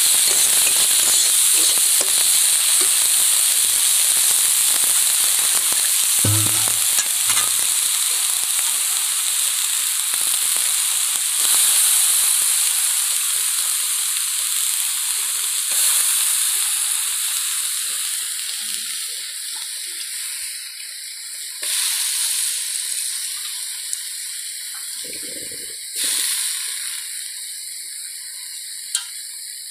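Small prawns sizzling as they fry in oil in a metal kadai, with a steel spatula stirred through them now and then. The sizzle slowly dies down, with short louder swells along the way.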